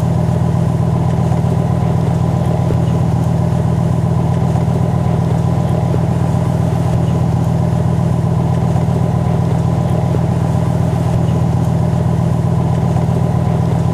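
Steady engine drone: a loud, even low hum that holds one pitch throughout.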